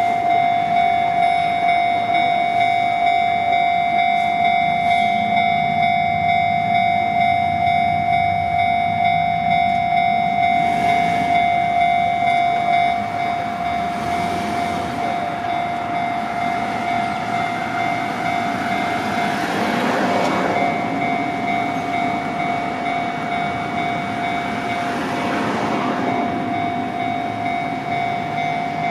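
Japanese level crossing warning bell clanging in a rapid, even beat, a little quieter from about 13 seconds in. In the second half a train passes over the crossing, its running noise swelling and fading several times under the bell.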